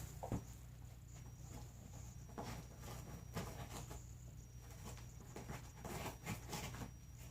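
Cardboard being cut: faint scratchy scraping and crackling in short spells, with a light knock about a third of a second in.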